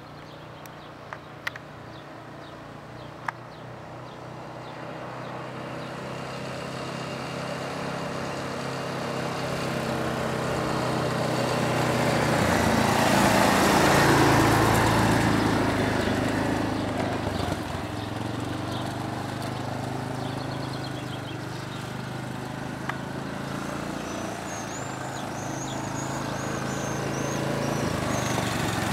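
Utility quad bike (ATV) engine running as the quad rides about. It grows louder to a peak as it passes close about halfway through, shifts in pitch, fades as it moves off, then grows louder again near the end.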